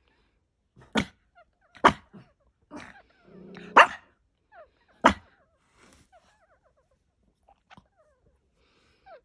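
Newborn puppies nursing, with many faint, short, falling squeaks and whimpers. Four sharp, loud short sounds come about a second apart in the first half, the loudest just after a low grunt.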